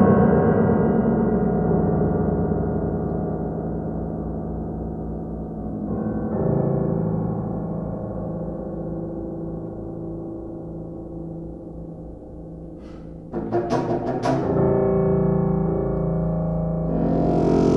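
Contrabassoon and grand piano playing slow contemporary chamber music: low notes and deep piano chords left ringing and slowly fading, a new low entry about six seconds in, then a cluster of sharp piano strikes about thirteen seconds in, followed by held low tones that swell near the end.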